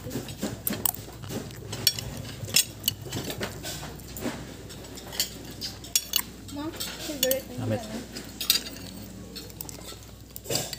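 Spoons and forks clinking and scraping on plates and bowls as several people eat at a table: many short, irregular clinks.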